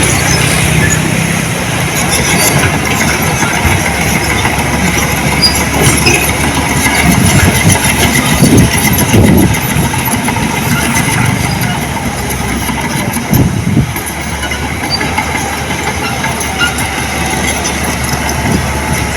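Diesel engine of heavy earthmoving machinery running steadily, rising in brief surges about eight seconds in and again about thirteen seconds in.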